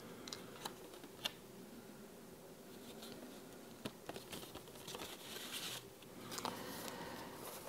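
A stiff paper greeting card being handled: faint paper rustling with a few small sharp taps, and a longer rustle of paper sliding against paper near the end.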